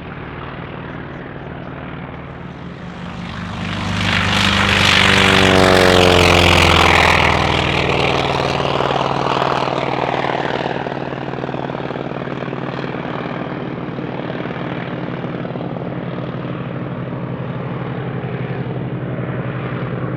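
North American T-28 Trojan's radial piston engine and propeller running steadily, then passing close by. It swells to its loudest about four to seven seconds in, with the pitch dropping as it goes past, then eases back to a steady drone.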